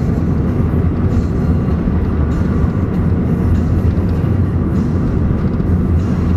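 Steady low rumble of a running car.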